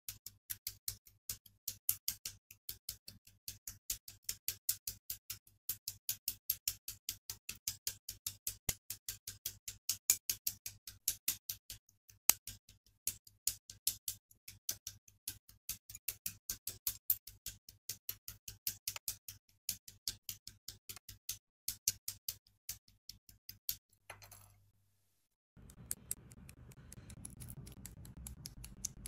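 Plastic model-kit parts being snipped from the sprue runners with hobby nippers: a rapid, even run of sharp clicks, about three or four a second, that stops about 24 seconds in. A steady low hiss follows.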